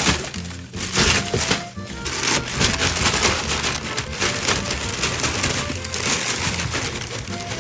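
Cardboard box being opened and handled close to the microphone: repeated scraping, ripping and rustling of cardboard, with music playing underneath.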